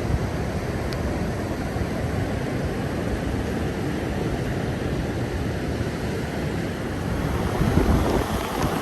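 Steady low noise of a truck driving over beach sand, mixed with wind noise on the microphone; it swells briefly near the end.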